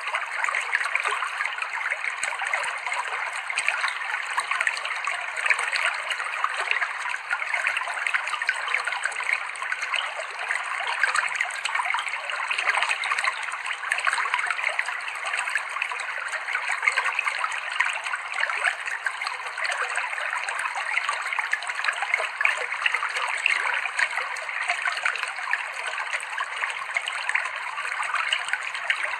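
Clear river water running and babbling over rocks: a steady, unbroken rush with fine splashing.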